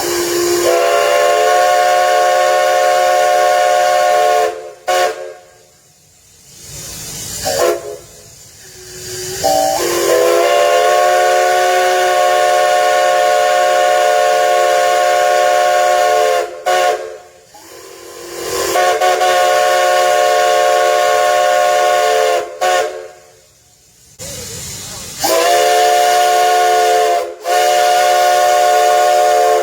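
Nickel Plate Road 587's steam locomotive whistle blown in a series of long blasts with short toots between them, each blast a chord of several notes that slides up into pitch as the valve opens. Steam hisses in the gaps between blasts.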